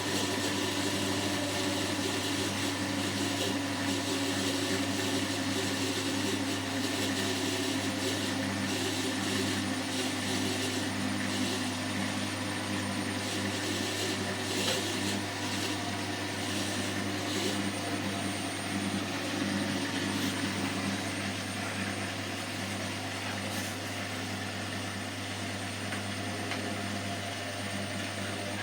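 Washing machine drum spinning on an inverter motor, a steady whirring hum that eases slightly over the last few seconds.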